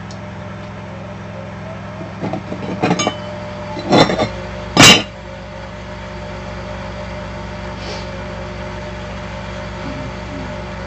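A steady low mechanical hum, with a few light knocks about two to three seconds in and then two sharp metal clanks about four and five seconds in, the second the loudest, as pieces of the homemade metal grinder stand are handled.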